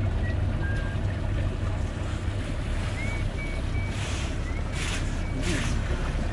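Wind buffeting the microphone and water slapping against the hull of a drifting boat: a steady low rumble, with a few brief hissing splashes between about four and five and a half seconds in.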